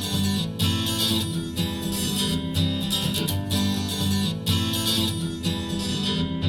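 Acoustic guitar strumming a steady rhythm in the instrumental intro of an acoustic pop song. It is played back through an in-ear monitor and recorded for a sound comparison.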